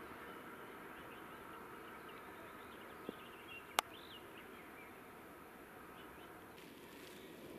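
Birds chirping over the faint, steady rumble of a freight train moving away down the line, with one sharp click a little under four seconds in.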